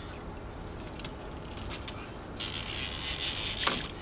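Fishing reel ratcheting while a hooked sturgeon is fought on the rod: faint scattered clicks at first, then about two and a half seconds in a dense, high buzzing run of clicks for about a second and a half that stops abruptly.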